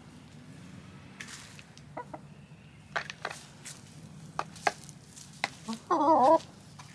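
Backyard hens, with scattered light clicks throughout and one loud, wavering chicken call about six seconds in.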